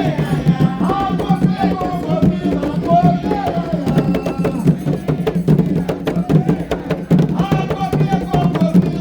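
Atabaque hand drums playing a dense, driving rhythm, with voices singing over them.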